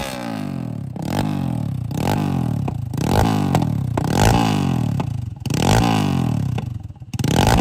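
250Z motorcycle engine revved in a series of quick throttle blips, the pitch dropping back after each one.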